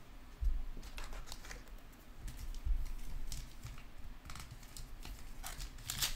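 Trading cards and a foil-wrapped card pack being handled by hand: scattered light clicks, taps and rustles as cards are set down and a pack is taken from its box and gripped to be torn open.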